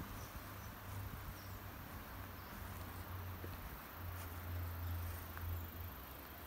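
Faint outdoor ambience: a steady low hum, a little stronger about two thirds of the way through, with a few short, high chirps.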